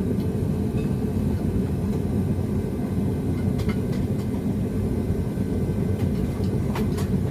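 Two-burner gas forge running with a steady low rumble. There are a few faint metallic clicks about halfway through and near the end.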